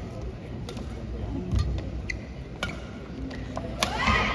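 Badminton rally: sharp racket strikes on the shuttlecock about a second apart, with brief shoe squeaks on the court floor over the low hum of the arena crowd.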